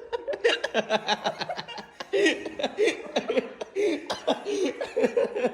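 Two men laughing, in quick choppy pulses of voice.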